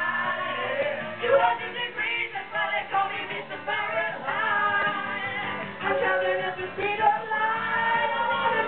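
Music with singing.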